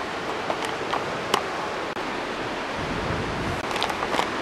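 Steady rushing noise of a heavy thunderstorm, with a few sharp ticks scattered through it and a short low rumble about three seconds in.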